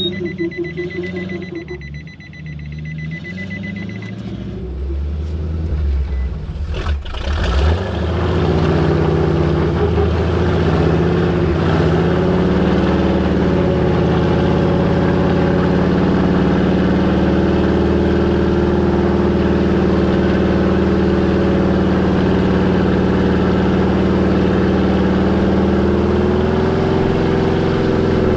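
A vehicle's electronic warning beep pulsing for the first few seconds, then a sharp click about seven seconds in, after which a vehicle engine runs steadily at an even pitch.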